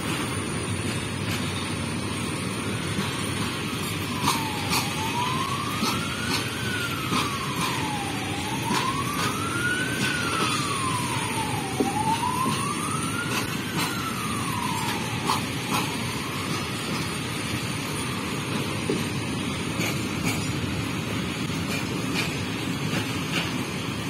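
Open freight wagons of a passing goods train rolling by: a steady rumble of wheels on rail with scattered clicks and clanks. From about four seconds in, a siren wails over it, rising and falling slowly three times before fading out.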